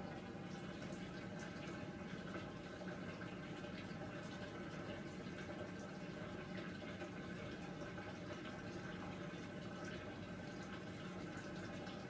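Hoover Dynamic washing machine taking in water with the drum at rest: a steady trickle and splash of water running into the drum.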